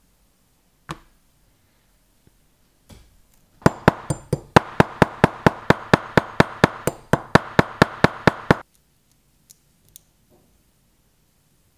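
Small hammer tapping a thin metal pin against a steel bench block: about twenty quick, even strikes, around four a second, each a sharp ringing metallic tap. The tapping lasts about five seconds and stops suddenly. A single click comes about a second in.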